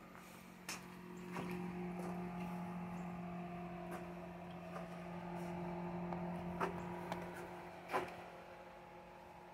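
A steady machine hum that comes in about a second in and dies away near the end, with a few sharp clicks or knocks, the loudest near the end.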